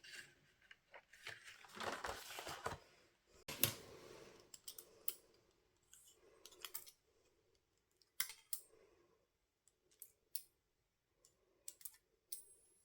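Faint scissor snips and rustling of cardstock being trimmed, with scattered light clicks and taps of paper pieces between.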